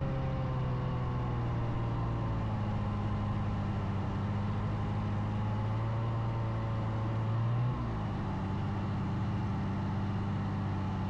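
Snowmobile engine running steadily while travelling along a snow trail, with a brief rise in revs about three quarters of the way through before settling a little lower.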